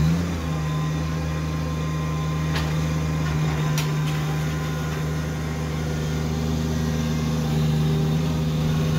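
Kubota compact tractor's diesel engine running steadily at working revs while the front loader digs into a dirt pile and the tractor drives off, its pitch stepping up slightly right at the start. A couple of faint clicks are heard a few seconds in.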